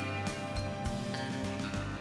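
Recorded music with a steady beat playing under the end credits.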